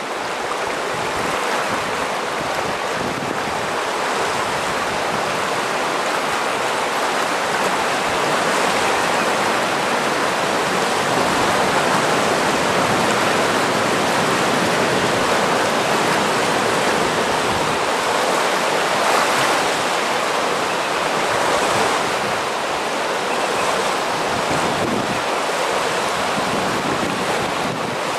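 Fast-moving water of a tsunami surge rushing through a lagoon: a steady rushing hiss with no breaks, swelling slightly in the middle.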